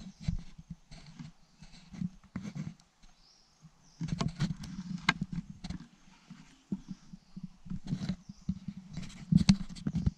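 Slow footsteps crunching and rustling through dry leaf litter and twigs, in irregular steps with knocks, becoming busier about four seconds in and again near the end.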